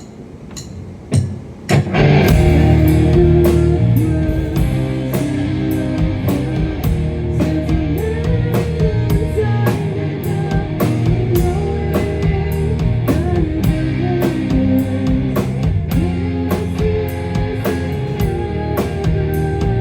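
Live band playing a rock tune, with guitar and drums, starting about two seconds in after a couple of sharp hits.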